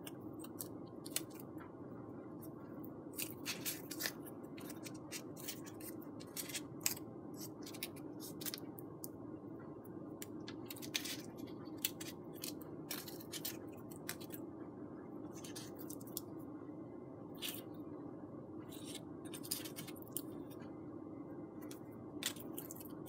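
Faint steady hum with scattered small clicks and crackles of foamboard pieces being handled and pressed together while hot glue sets.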